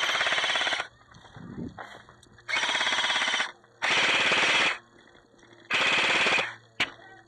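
Airsoft gun firing full-auto, four bursts of about a second each with short pauses between them, then a single sharp snap near the end.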